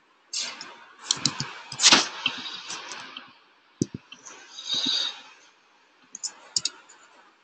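Typing on a computer keyboard with mouse clicks: a quick run of keystrokes in the first three seconds, a single click near four seconds, then a few more clicks near the end.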